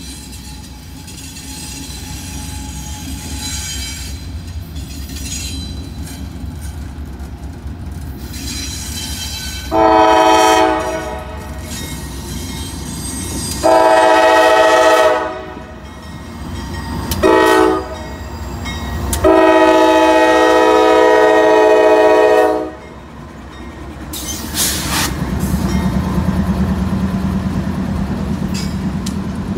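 Norfolk Southern AC44C6M diesel locomotive sounding its chime air horn in the grade-crossing pattern: two long blasts, a short one and a final longer one, over the rising rumble of the approaching train. Near the end the lead locomotives pass close, their diesel engines and wheels loud.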